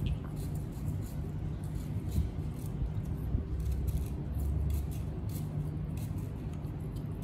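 Kitchen knife slicing into a peeled fruit: small, irregular crisp clicks and cuts, over a low steady hum.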